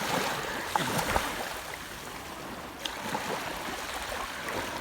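Water washing at a beach in a steady rush, with faint voices gliding in and out and a few short splashes or knocks about a second in and near the middle.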